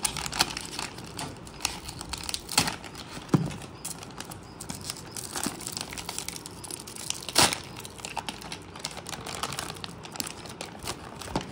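Thin plastic packaging pouch being cut with a knife and torn open by hand, crinkling and rustling with irregular sharp crackles, the loudest about seven and a half seconds in.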